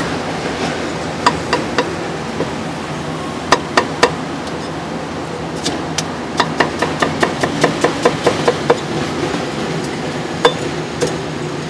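Cleaver chopping meat on a thick round wooden chopping block: sharp single chops in small groups, then a quick even run of chops, about five a second, in the middle, and two more near the end, over a steady background hum.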